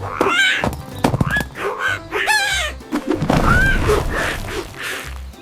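Cartoon background music with a steady bass beat, under several short, high, squeaky character cries that swoop up and down in pitch, with a heavier low thud about three and a half seconds in.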